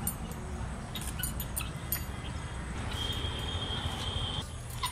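Light clicks and snaps of banana flower florets being pulled apart and trimmed against a hand blade, over a low steady rumble. A steady high-pitched animal call holds for about a second and a half past the middle.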